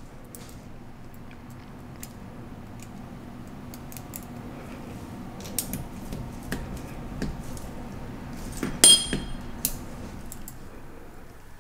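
Small metal screws and a screwdriver clicking and ticking against a metal lens mount as the mount screws are driven back in, with one sharp, ringing metallic clink about nine seconds in.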